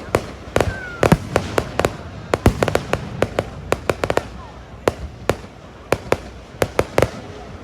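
Fireworks display going off: a quick, irregular run of sharp bangs and crackles, several in rapid clusters, with a faint whistle or two gliding among them.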